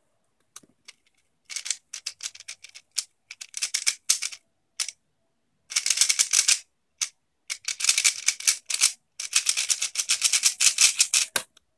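X-Man Tornado 3x3 speedcube being turned at speed: rapid clicking and clacking of the layers in bursts of a second or two, with short pauses between, stopping just before the end.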